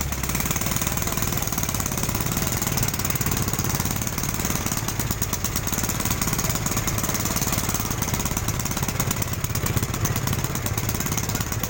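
A small engine running steadily with a rapid, even rattle.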